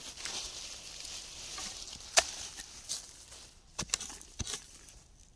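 A digging spade striking and chopping into soil a few times, about five short sharp knocks in the second half, over a faint high hiss that fades out.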